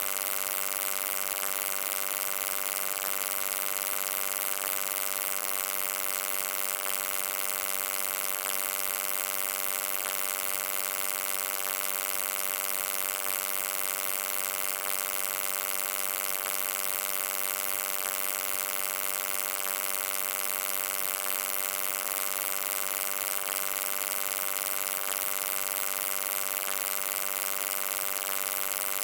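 Steady electric hum: a buzzing tone with many overtones and an even hiss above it, unchanging throughout.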